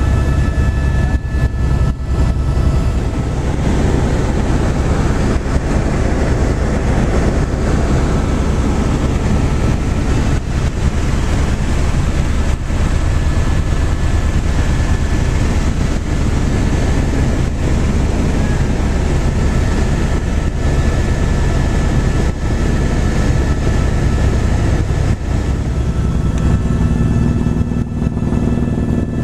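Helicopter running steadily: a loud, even rotor and engine din with a thin, steady turbine whine over it. A lower hum joins near the end.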